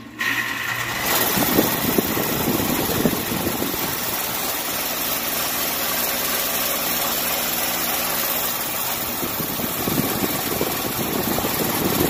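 Outdoor air-conditioner condenser unit running: the compressor and fan make a loud, steady, buzzing hum. This is excessive vibration, which the presenters put down to worn compressor mounts (rubber stoppers) or low compressor oil.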